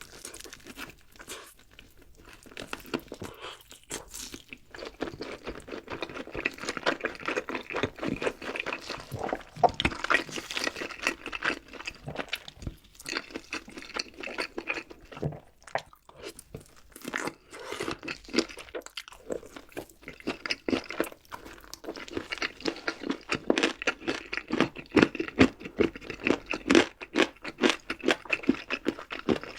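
Close-miked chewing and crunching of crisp food: a dense run of crackly bites and chews, quieter at first and fuller from about five seconds in.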